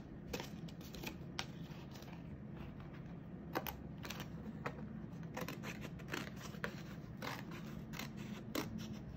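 Scissors snipping through a paper plate: short, sharp snips at an uneven pace, about two a second.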